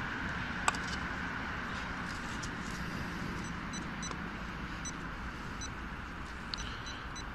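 Handheld metal-detecting pinpointer probing a freshly dug hole, giving short, faint high-pitched beeps in the second half, a sign that it is picking up metal in the soil. Under it runs a steady background rush of distant road traffic, with one sharp click about a second in.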